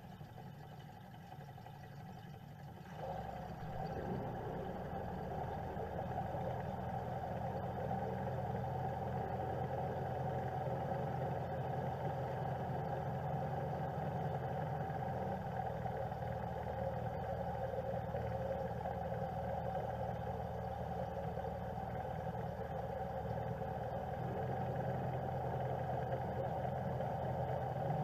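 Outboard motors of a group of motorized inflatable boats running on the river: a steady engine drone that grows louder about three seconds in and swells again near the end.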